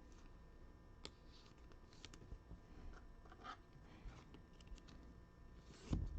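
Trading cards being handled and flipped through: faint, scattered soft clicks and brushing sounds, with a louder low knock near the end.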